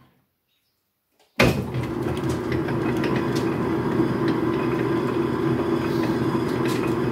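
Logan metal lathe switched on about a second and a half in with a sudden start, then running steadily with a dense mechanical hum as the chuck spins, its first run in months.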